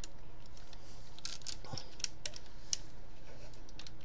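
Scattered faint clicks and light taps of a transforming Optimus Prime toy figure's plastic and chrome-painted parts as they are pushed and fitted by hand.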